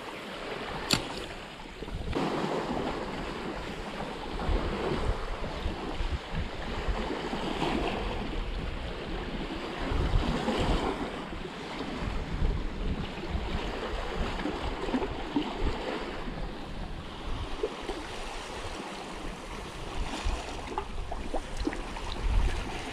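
Small sea waves washing against a rocky shore, with wind buffeting the microphone in low gusts. A single sharp click sounds about a second in.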